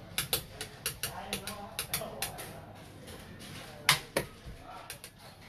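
Xiangqi pieces clacking: a quick run of light clicks about four or five a second through the first two seconds, then a sharper clack near four seconds as a piece is played and the chess clock is pressed.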